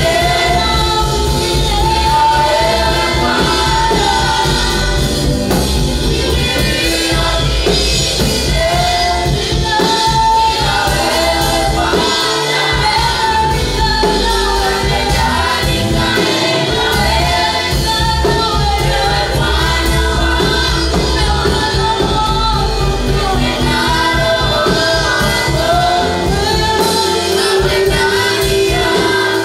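Gospel worship song: a choir singing a melody together over a band with a steady heavy bass and drum beat.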